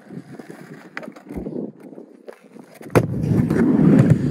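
Skateboard on concrete and a plywood kicker ramp: a few light clicks, then a sharp clack about three seconds in, followed by the loud rumble of the wheels rolling.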